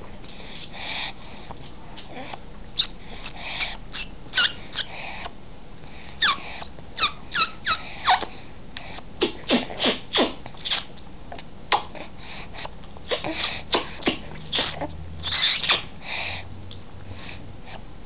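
Baby suckling at the breast: irregular wet sucking and smacking clicks, about one or two a second, with a few short falling squeaks around a third of the way in.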